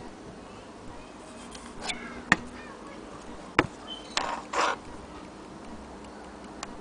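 Metal clock parts being handled and set down: a few sharp knocks, the loudest two about a second apart in the middle, then a short burst of rustling and scraping.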